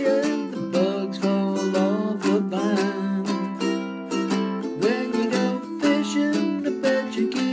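A man singing to his own strummed ukulele: steady chord strumming throughout, with a sung line near the start and another from about five seconds in, the ukulele carrying on alone between them.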